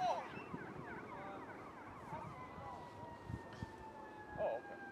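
A distant siren: one steady tone that slowly falls in pitch, heard over faint voices.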